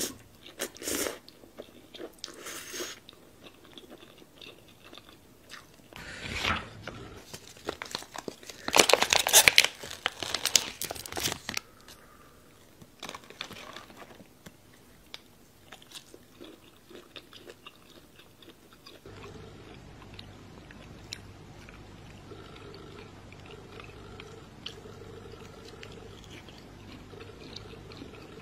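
A person eating: slurping noodles at the start, then biting and chewing. The loudest crunchy bites come a little under halfway through. After about two-thirds of the way, softer chewing goes on over a steady low hum.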